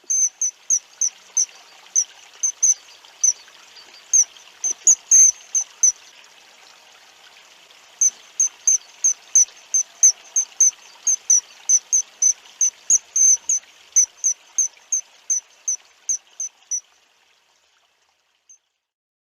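Short, high chirps repeated two or three times a second, pausing briefly about six seconds in and stopping near the end, over the steady rush of a stream.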